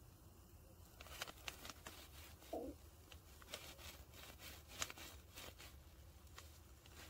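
Faint, irregular crinkles and ticks of a plastic bag as nitrate powder is poured from it into a beaker of acid, starting about a second in.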